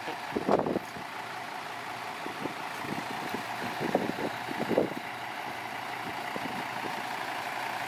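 Diesel engine of a heavy vehicle running steadily, with a few short faint sounds over it.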